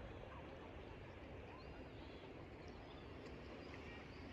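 Faint outdoor ambience, a steady low noise, with a few faint, short, high bird chirps scattered through it.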